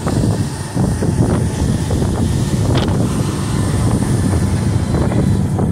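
Wind buffeting the microphone on a moving ship's deck: a steady low rumble with short gusty spikes.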